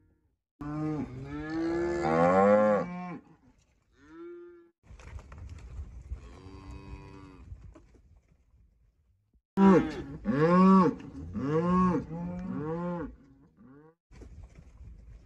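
Cattle mooing: several separate moos, including a long drawn-out one in the first few seconds and, about ten seconds in, a run of four loud moos in quick succession.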